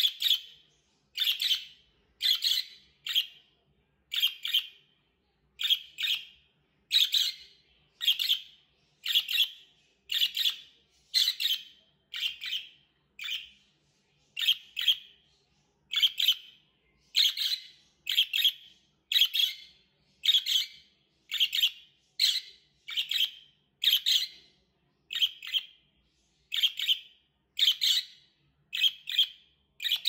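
Budgerigar chirping: short, sharp, high chirps repeated at a steady pace of about one a second, a few coming in quick pairs.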